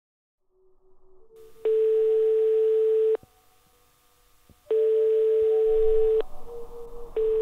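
Telephone ringback tone of an outgoing call: three long, steady beeps, each about a second and a half, with short gaps between them.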